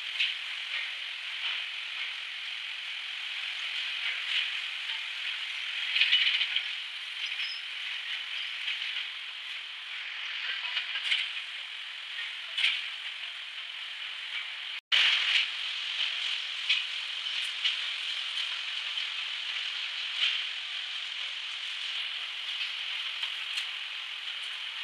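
Steel rolling mill running: steady rattling clatter and hiss with frequent sharp metallic clicks and knocks, briefly cut off about halfway through.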